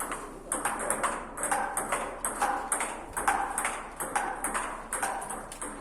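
Table tennis rally: a celluloid ball clicking off rubber paddles and bouncing on the table, a quick irregular run of sharp ticks, several a second.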